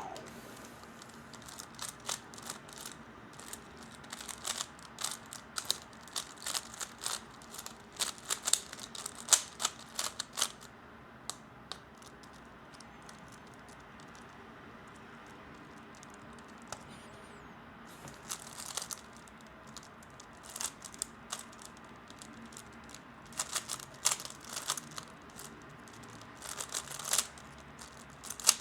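A 3x3 speedcube being turned fast: dense runs of sharp plastic clicks as the layers snap round. There are two spells of turning with a pause of several seconds in the middle.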